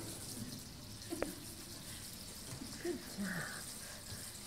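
Water trickling in a stone baptismal font, with faint murmured voices and a single faint click about a second in.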